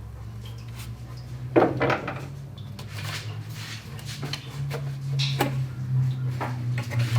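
Scattered metallic clanks and knocks, the loudest about a second and a half in, over a steady low hum that steps up slightly in pitch about four and a half seconds in.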